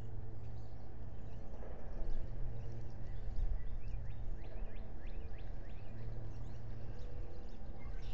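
Steady outdoor background of a low hum and rumble, with a few faint, short high bird chirps in the middle.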